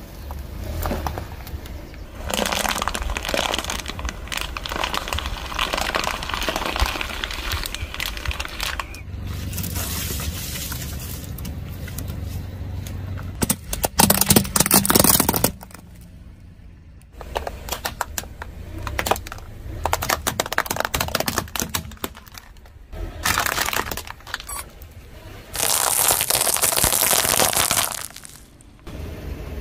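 A car tyre rolling slowly over a series of objects and crushing them: repeated spells of crunching and crackling. The loudest, sharpest cracking comes about halfway through, as rigid plastic baskets break under the wheel.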